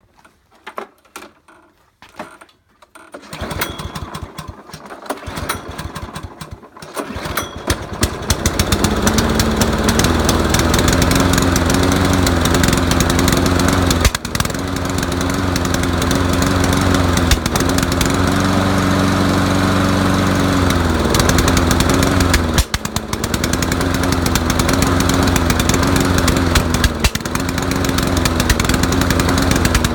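Stiga lawnmower's petrol engine running unevenly. After a few quiet seconds it builds up and settles into a run, but its speed wavers and it stumbles and drops out briefly every few seconds before picking up again.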